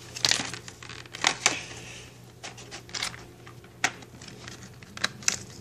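A toy engine's packaging being handled and worked open by hand: irregular clicks, taps and rustles.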